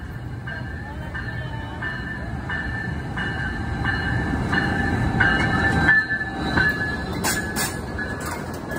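Amtrak passenger train led by a Siemens ALC-42 Charger diesel-electric locomotive arriving and passing close by. Its rumble builds to the loudest point about six seconds in as the locomotive goes past, with a thin steady high squeal over it. A few sharp clicks come near the end as the cars follow.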